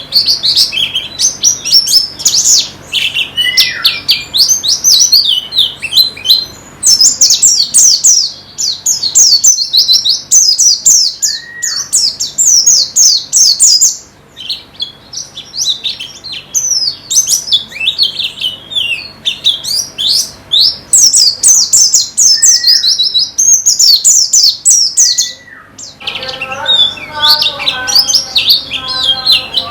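White-eye (pleci) song: long runs of fast, high chirping phrases with brief pauses and a few lone down-slurred notes. Near the end the song changes, with lower, evenly repeated notes running under the high chirps.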